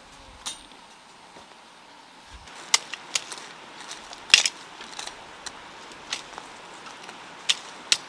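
Irregular sharp crackles and snaps of dry grass and weeds being pulled up and torn by hand. They start a couple of seconds in, and the loudest comes a little past four seconds in.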